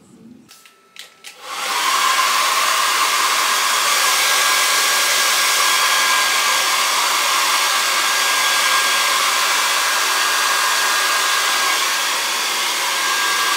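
Small electric blower motor running steadily, a loud even rush of air with a thin whine, starting a second and a half in after a few clicks.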